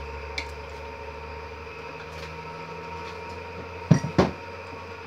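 Two quick knocks close together about four seconds in, plastic kitchenware being set down on the countertop, over a steady low hum.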